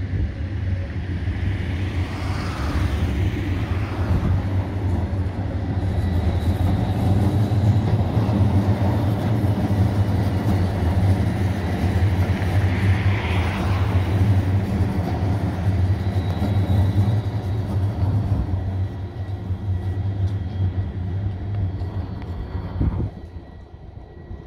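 Stadtbahn light-rail train passing close, a steady low rumble of wheels on rails with a rising and falling whine twice; the rumble drops away sharply near the end.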